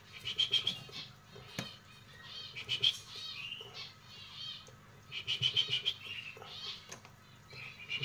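Canary chirping in short, rapid trilled bursts, three times, with softer chirps between.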